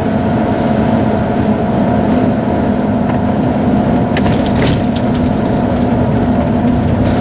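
Steady road and engine noise heard inside a car travelling at highway speed, with a constant low hum. A few sharp clicks come about four to five seconds in.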